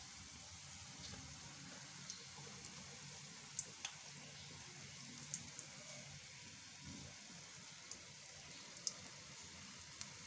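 Gram-flour (besan) pakoras deep-frying in hot oil: a steady, faint sizzle with scattered sharp pops and crackles.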